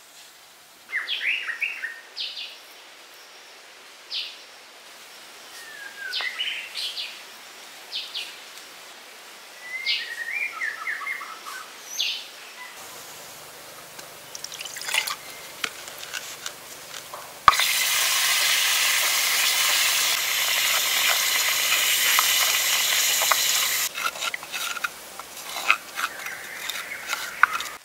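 Birds chirping in short calls through the first dozen seconds. Then water poured from a clay pot into a clay bowl, a steady pour that starts suddenly and lasts about six seconds, followed by a wooden stick clicking and scraping as it stirs a white paste in the bowl.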